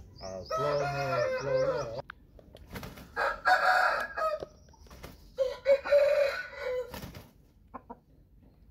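Fighting-breed roosters crowing, three separate crows: a long one in the first two seconds, then two more around three and six seconds in.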